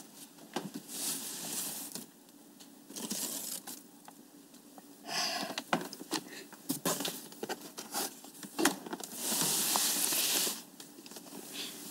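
Paper bag and cardboard box rustling and crinkling in bursts as their contents are rummaged through, with small knocks and clicks of things being moved about.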